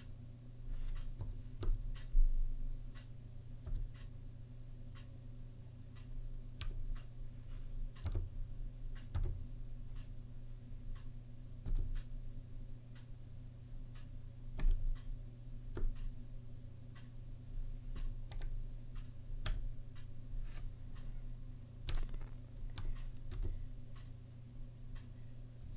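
Uneven typing on a Zilpzalp ergonomic keyboard with Kaihua Twilight low-profile switches: separate key clicks, about one or two a second with irregular pauses, over a low steady hum.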